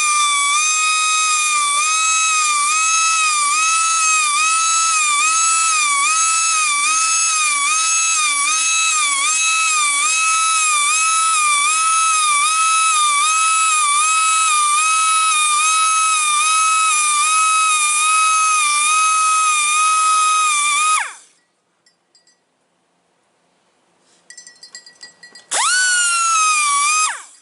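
Electric bandsaw blade sharpener running, its grinding wheel giving a loud high whine that dips in pitch at a steady rhythm as it grinds tooth after tooth. It stops sharply about two-thirds of the way through, then starts up again near the end in a short rising-then-falling run.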